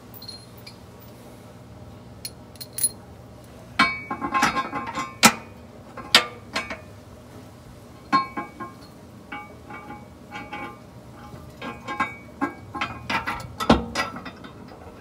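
Scattered metallic clinks and knocks, some ringing briefly, from bolts and washers being worked against a steel trailer receiver hitch and the vehicle frame while lining up the bolt holes. The clinks come in irregular clusters, the busiest about four to seven seconds in and again near the end.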